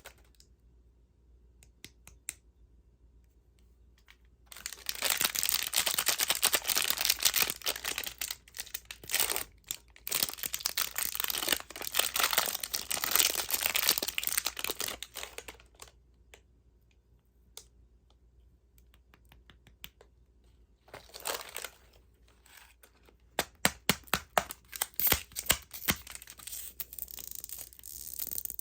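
Candy wrapper being torn open and crinkled by hand: a long stretch of dense rustling and tearing, a pause, a short burst, then a run of sharp crackles near the end.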